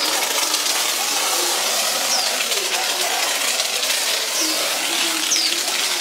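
A steady, even hiss, with a few short, high, falling chirps like small birds about two, four and a half and five seconds in.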